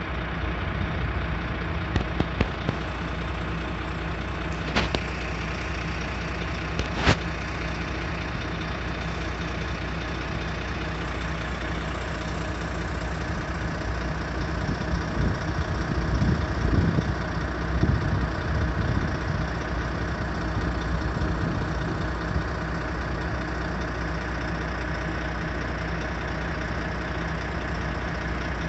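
An engine running steadily with a low, even hum, with a few sharp knocks in the first seven seconds and a louder rumble around the middle.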